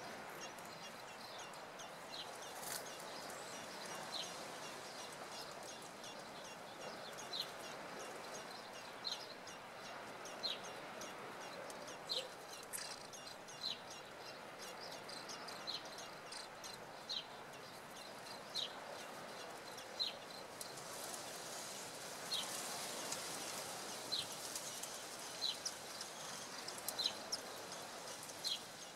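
A bird calling with short, high notes that each drop slightly in pitch, repeated about once every second and a half over a faint steady background hiss.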